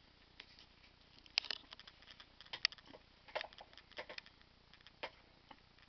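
Jack Russell terrier rooting with its muzzle in a fleece dressing gown after a hidden tennis ball: an irregular run of soft clicks and crackles from the fabric and the dog's mouth, the sharpest about one and a half and two and a half seconds in.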